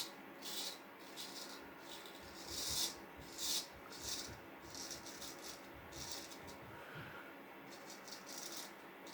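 About a dozen short, scratchy rustles at irregular intervals, from a vintage straight razor being handled.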